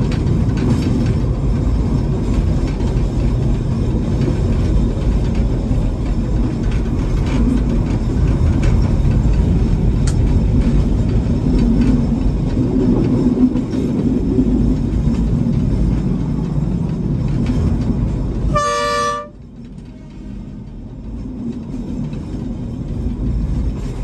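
Narrow-gauge (762 mm) train running, a steady low rumble heard from the cab, with one short horn toot about 19 seconds in. Right after the toot the rumble drops sharply in loudness, then slowly builds again.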